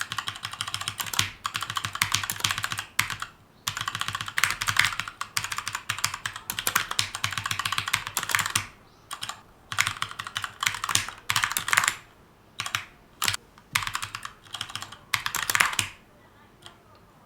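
Keychron K2 mechanical keyboard with brown switches being typed on in quick runs of keystrokes broken by short pauses. The typing stops about a second before the end.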